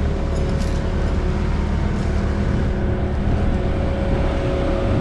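Telehandler's engine running steadily: a constant low rumble with a steady hum over it.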